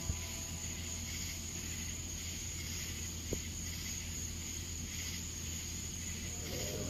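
Insect chorus: a steady, high-pitched drone over a low hum. There is one sharp click about halfway through.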